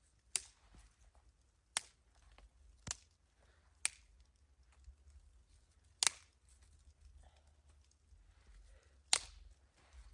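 Six sharp snaps or cracks at uneven intervals, a second to three seconds apart, over a faint background.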